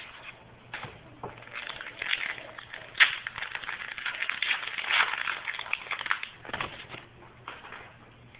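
Foil trading-card pack wrapper crinkling as it is torn open and handled, with the cards inside being shuffled. The crackling is dense in the middle of the stretch, with a sharp snap about three seconds in.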